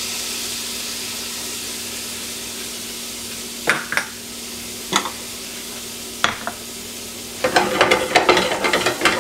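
Garlic and shallots sizzling in melted butter in a hot frying pan, a steady hiss that slowly eases. Three sharp clicks come in the middle. Near the end, a rapid scraping clatter starts as the garlic and shallots are stirred around in the pan.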